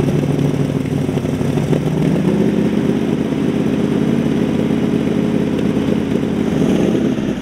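Supercharged rat-rod engine idling with an open exhaust, a steady low, lumpy drone whose pitch steps up slightly about two seconds in.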